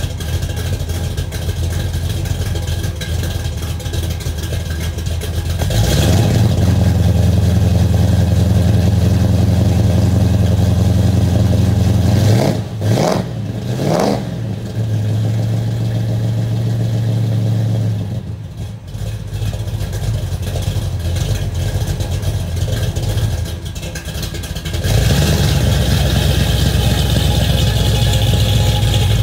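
A classic American car's engine idling with a deep, steady exhaust note. The idle steps up and down a few times, with a brief rev about halfway through. The car is warming up after a cold start. Near the end the engine note rises again as the car begins to back out.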